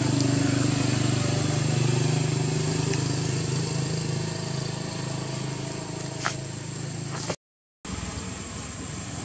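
Steady low hum of a running motor, with a faint steady high whine above it and two short clicks about six and seven seconds in. The sound cuts out completely for about half a second soon after.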